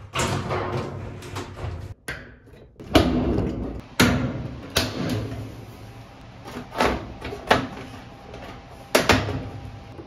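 Top-load washer's sheet-metal cabinet and plastic control console being handled and knocked back into place during reassembly: a series of sharp clunks and knocks, about six spread over several seconds, with handling rattle between them.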